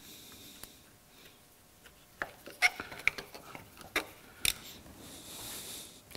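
Sharp metal clinks and taps of a hand tool on a LeBlond lathe's cross slide as its gib is adjusted, about half a dozen spread over a couple of seconds after a quiet start, then a soft hiss near the end.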